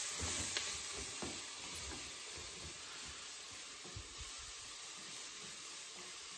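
Onions, shallots and leeks sizzling gently in a pot as they soften, stirred with a spatula, with a few soft knocks of the spatula against the pan.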